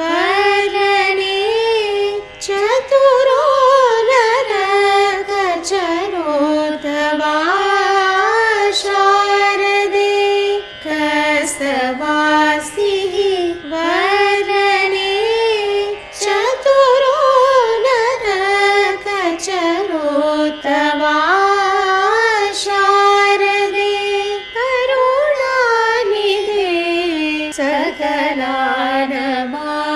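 Female voices singing a Carnatic devotional song in raga Hamir Kalyani, long phrases with gliding, ornamented pitch (gamakas), broken by short breath pauses.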